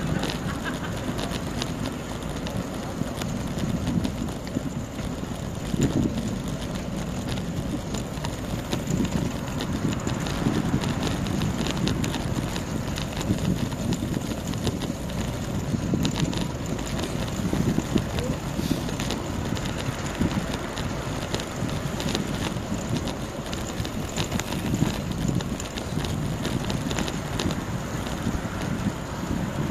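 Wind rumbling on the microphone of a rider moving along on a road bicycle, steady with irregular gusts.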